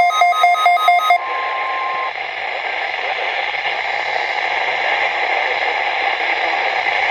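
Radio receiver static: a loud, even hiss. About a second in, a rapid electronic alert beeping stops and a steady alert tone sounds for about a second before the static takes over.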